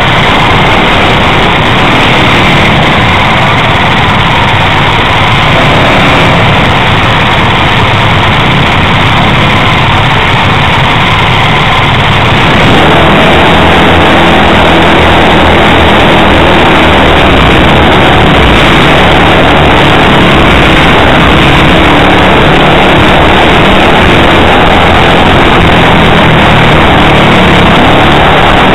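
Four-stroke kart engines of a World Formula kart pack, heard loud from on board: the camera kart's engine running at low speed among the others, growing louder and fuller from about twelve seconds in.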